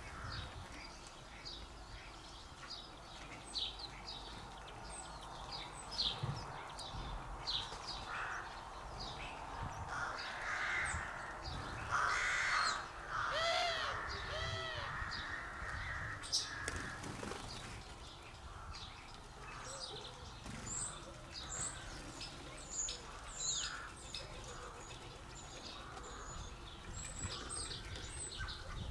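Garden birds calling: many short, high chirps run throughout, and a run of louder, harsh calls from a larger bird comes in the middle.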